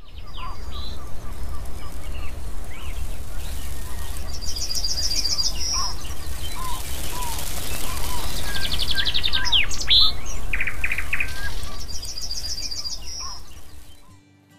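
Several birds calling outdoors, with rapid repeated trills a few times, short chirps and whistles, over a steady low rumble. It fades out near the end.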